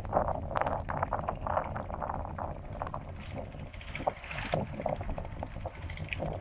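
Small waves lapping and splashing irregularly at the water's edge, with wind rumbling on the microphone underneath.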